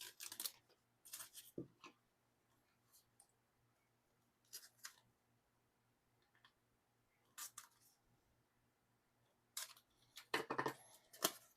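Scattered short crisp rustles and clicks of plastic packaging and card sleeves being handled, a few at a time with quiet gaps between, busiest near the end.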